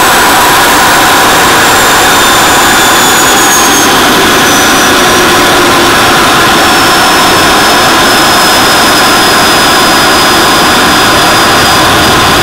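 Small jet engine on a bike running steadily: a loud, even rush with a faint high whine that slowly drops in pitch during the first half, then holds.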